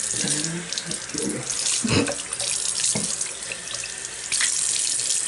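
Bathroom sink tap running while a face is washed. The flow gets louder about four seconds in.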